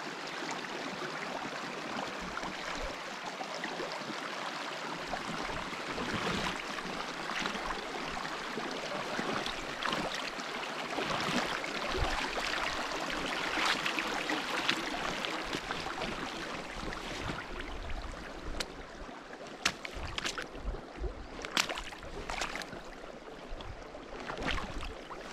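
A flooding brook rushing steadily as someone wades across it in rubber boots. Sloshing, splashing steps sound through the water noise and stand out more clearly in the last several seconds.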